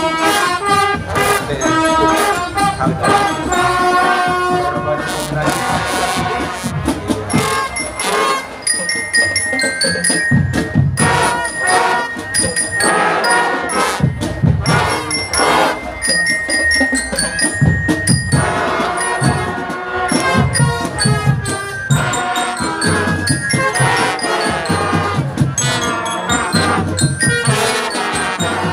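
Marching drum band playing a tune: trumpets and other brass carry the melody over high bell-lyre notes and a steady beat of marching drums.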